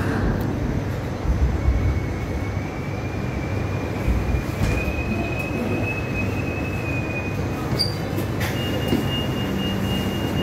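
Hong Kong Light Rail Phase III car running with a steady low rumble. Its wheels squeal in a thin, high, steady tone from about two seconds in until near eight seconds, then a second, slightly higher squeal starts near the end.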